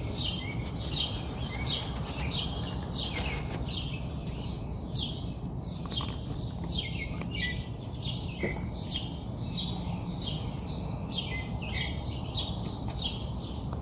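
Bird calling with short, high chirps that sweep downward in pitch, repeated about twice a second, over a steady low rumble.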